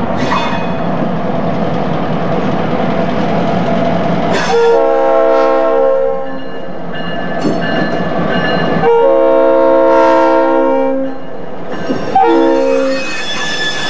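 Iowa Interstate diesel locomotive 707 running as it pulls its train, then sounding its air horn in a chord of several tones. It gives two long blasts and then a short one, the opening of the long-long-short-long grade-crossing signal.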